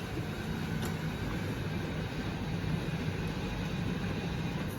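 Peugeot Partner van's engine running steadily at low revs.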